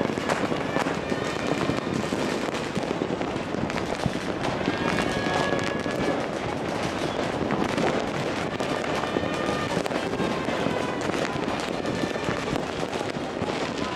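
Many firecrackers and fireworks going off at once across a city: a continuous crackling din dotted with many sharp bangs.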